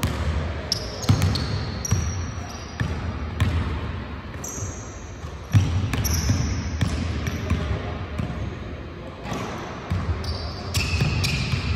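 Several basketballs bouncing irregularly on a hardwood gym floor as players dribble. Short high sneaker squeaks come in now and then, most plainly near the end.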